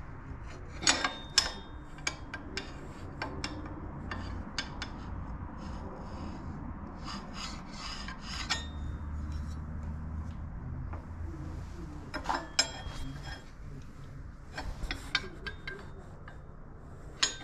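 Hands working a 30 series torque converter's metal pulleys on the engine shaft, giving scattered sharp metal clicks and clinks over a steady rubbing, while its alignment is checked. The clicks come in clusters about a second in and again in the last third.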